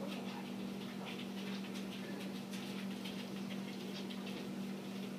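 Light, irregular pattering of a dog's paws and a person's footsteps on interlocking foam floor mats, over a steady low hum.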